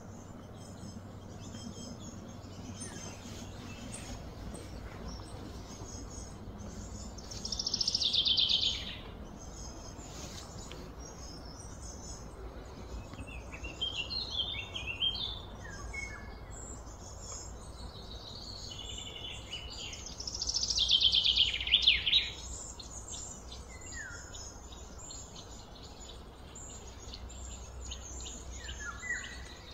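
Wild birds chirping and calling over a steady low background hum. Two louder, longer calls about eight and twenty-one seconds in each fall in pitch, and shorter chirps come in between.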